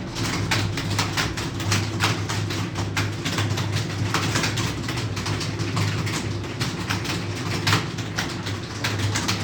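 Fast typing on a computer keyboard during a timed typing test: a quick, uneven run of keystroke clicks, several a second, over a steady low hum.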